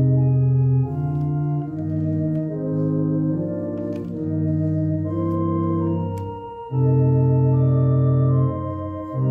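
Organ playing slow, held chords that change about once a second over a sustained bass, swelling louder near the start and again for a couple of seconds near the end.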